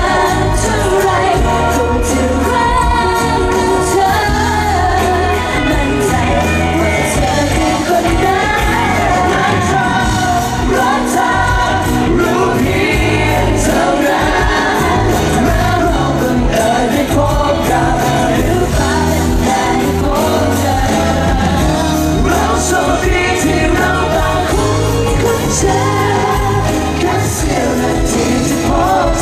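A pop song performed live by a group of singers with band backing, amplified over a concert sound system, with voices alternating and joining together.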